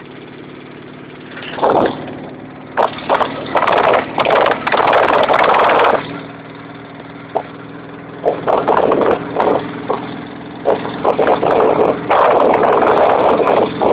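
Motorcycle engine running steadily while riding, with repeated loud stretches of rushing wind noise on the microphone over it.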